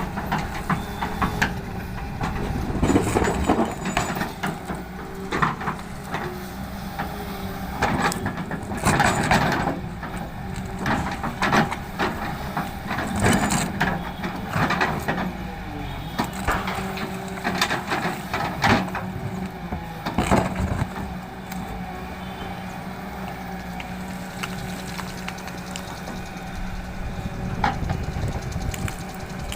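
JCB excavator's diesel engine running steadily while gravel is dug and loaded, with repeated irregular crunching and clattering of stones against the bucket and truck bed.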